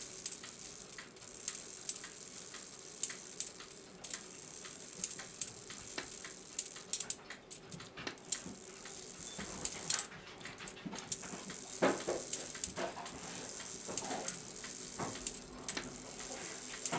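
Old cuckoo clock movement clicking irregularly as its hands are turned through the hours to test the strike train tripping. A short pitched whine comes in about twelve seconds in.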